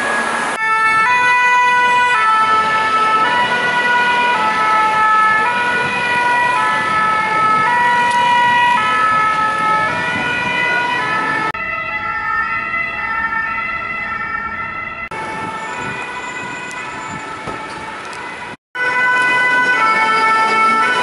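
French two-tone "pin-pon" sirens of Paris fire engines and ambulances, each stepping between a high and a low note about once a second, several sirens sounding together out of step over city traffic. The sound jumps abruptly between clips a few times, with a brief dropout near the end.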